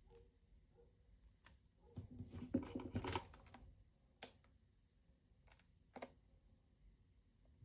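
Faint clicking and handling noises: a dense run of clicks from about two seconds in, lasting over a second, then a few single clicks.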